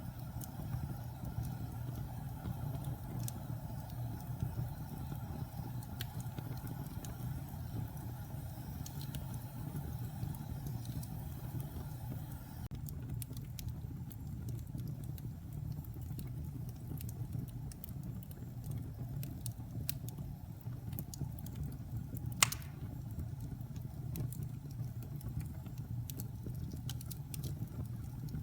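Logs burning in a fireplace: a steady low rumble of flames with scattered small crackles, and one sharp, loud pop about three-quarters of the way through.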